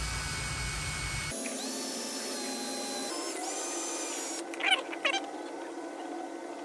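A drill spinning a rubber valve stem against a painted saddlebag to rub off leftover reflector adhesive: a steady motor whine that shifts in pitch a couple of times as it loads up. About four and a half to five seconds in come a few short, high squeaks of the rubber on the paint.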